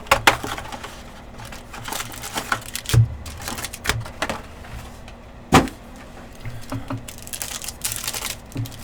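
Trading-card packs being opened and handled: crinkling and tearing wrappers, with scattered clicks and knocks of cards and packs against the table, and one louder knock a little past halfway.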